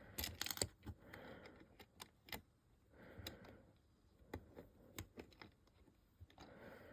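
Faint, scattered clicks of tiny plastic building bricks being handled and snapped together.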